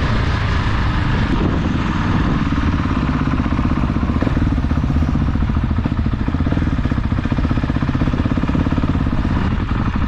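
KTM 690 SMC R's single-cylinder engine through a full LeoVince exhaust, running steadily as the motorcycle rolls along slowly.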